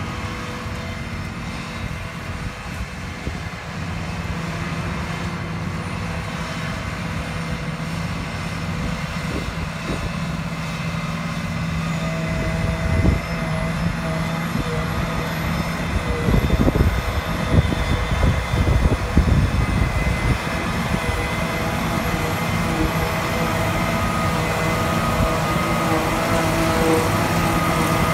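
Massey Ferguson 7720S tractor powering a trailed JF FCT1050 forage harvester chopping grass, with a classic Massey Ferguson tractor pulling the silage trailer alongside: a steady engine and machine drone that grows louder as the outfit comes closer. An uneven low rumble comes through about halfway.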